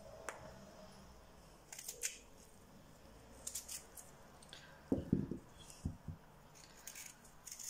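Knife peeling and cutting red-skinned Irish Rooster potatoes: faint, short scraping strokes of the blade on the skin, with two soft knocks about five and six seconds in as potato pieces are set down on the wooden table.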